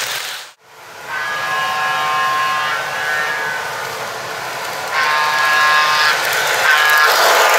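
Broadway Limited model GG1 electric locomotive and passenger cars running on plastic-roadbed track: wheels clattering over the rails with a steady whine over them. The sound cuts out for a moment about half a second in, then grows louder near the end as the train comes closer.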